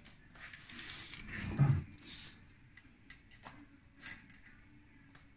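A steel tape measure pulled out and laid along an LED light bar's aluminium housing: a rasping rustle with a knock about a second and a half in, then a few light metallic clicks.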